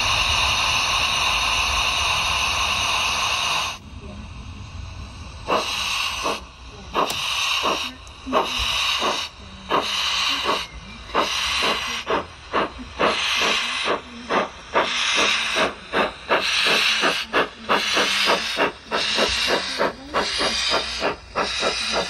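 Bachmann G-scale GWR 45xx 2-6-2 Prairie tank locomotive's sound card: a steady hiss of steam that cuts off about four seconds in, then exhaust chuffs that start slowly and quicken to about two or three a second as the loco pulls away.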